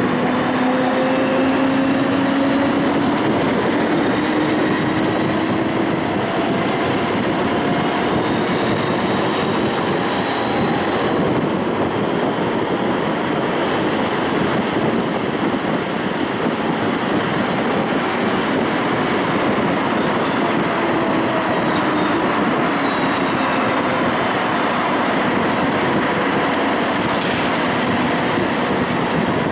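A Siemens Combino tram heard from inside while running: a steady rumble of wheels and running noise. Twice, at the start and again about twenty seconds in, a whine rises in pitch as the tram gathers speed.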